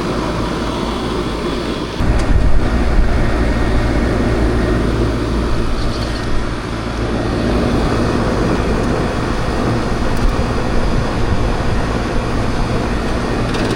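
Coleman R22 package air-conditioning unit running, its compressor and condenser fan making a steady low hum and rush that gets louder about two seconds in. The unit is back in operation after a failed run capacitor was replaced.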